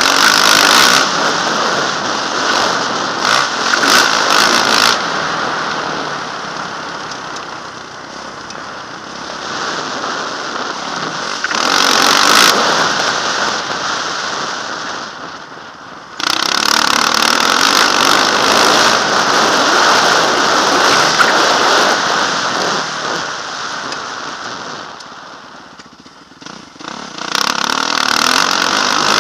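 Yamaha motocross bike's engine being ridden hard, the throttle opening and closing so the noise surges and falls away several times, with a sudden surge about halfway through. Heavy wind and track noise on the helmet-mounted camera.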